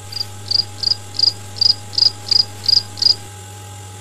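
A cricket chirping: about nine short chirps at one high pitch, roughly three a second, stopping about a second before the end, over a steady low hum.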